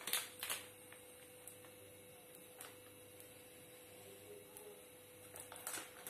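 Faint crinkling and clicking of a small plastic chilli-powder packet being handled, with a few brief rustles at the start and near the end. A low steady hum sits underneath.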